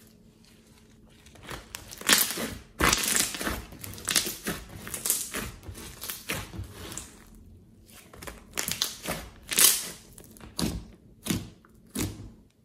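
Hands squeezing, folding and poking a thick slime with small beads mixed in. The slime squelches and crackles with air pops as it is pressed. The sounds start about a second and a half in and come in quick irregular bursts, with a brief lull about halfway through.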